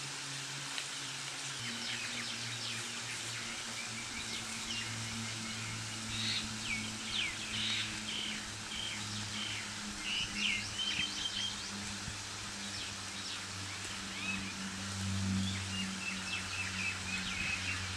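Small birds chirping and calling in quick short notes, thickest from about six to eleven seconds in and again near the end, over a steady hiss and a low hum.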